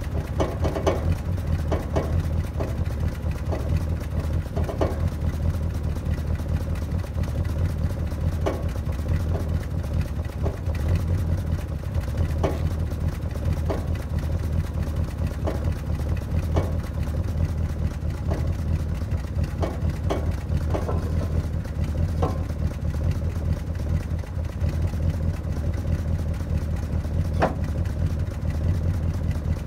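1966 Plymouth Barracuda's 318 V8 with a two-barrel carburettor idling steadily as it warms up after a cold start. Occasional light ticks sound over the idle.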